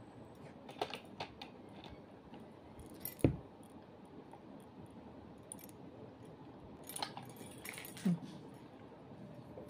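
Scattered small clicks and knocks of objects being handled, with one louder thump about three seconds in and another knock near the end.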